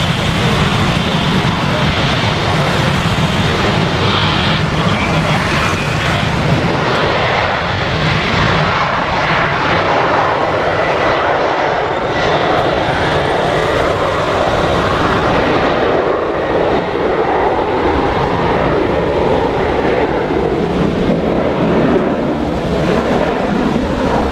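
Jet engine noise from a Boeing 737-900ER's CFM56 turbofans at take-off power as the airliner departs, a loud, steady roar whose low rumble thins out about two-thirds of the way through. Heavy rain hiss lies under it.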